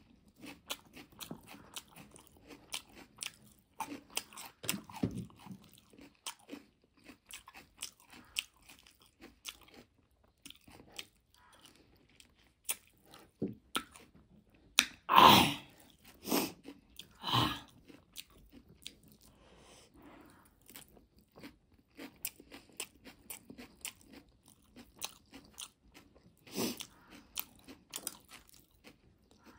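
Close-up eating sounds of a person eating spicy instant noodles and boiled egg by hand: chewing and mouth smacking in many small clicks, with three louder bursts about halfway through.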